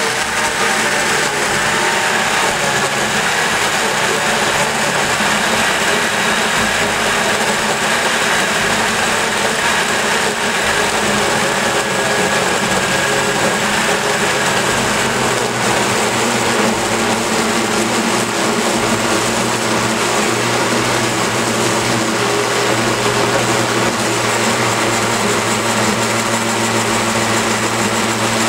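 Osterizer countertop blender running steadily at speed, puréeing bananas with a little water and lemon juice into a smooth sauce.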